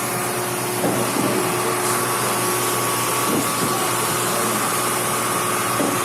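A machine running steadily: an even mechanical hum with a steady whine over a loud rushing noise, with faint voices in the background.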